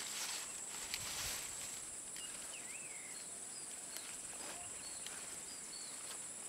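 Steady high-pitched insect buzzing in a rural field, with a few short bird chirps. Near the start, leaves and soil rustle as a clump of turmeric is pulled out of the ground by hand.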